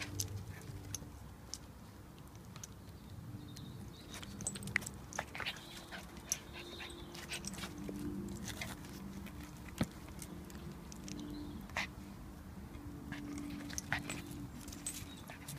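Small white fluffy dog mouthing and snapping at a hand in play, making short low drawn-out vocal noises over and over, with sharp clicks scattered throughout.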